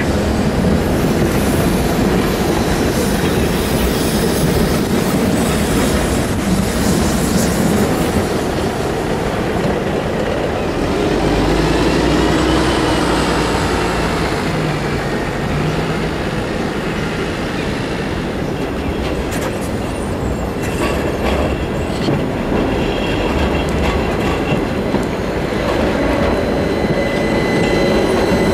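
Trams and a city bus passing through a street crossing: continuous rolling traffic noise, with a bus engine rumbling past about halfway through, a run of clacks from tram wheels over rail joints and switches, and a thin wheel squeal as a low-floor tram rounds the curve close by near the end.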